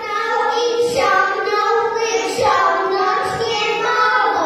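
Young children singing, with long held notes.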